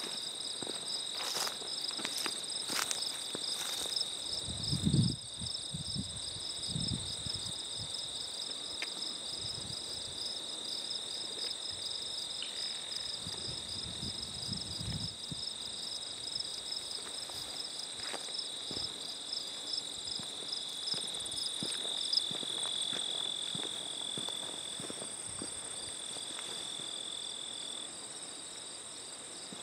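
Late-summer field insects trilling steadily at several high pitches, one a fast pulsing trill that drops out a few seconds before the end. Scattered footsteps crunch and thump on gravel rail ballast, the loudest about five seconds in.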